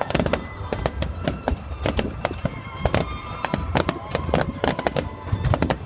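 Fireworks bursting in rapid, irregular pops and bangs over a low rumble, with music playing underneath.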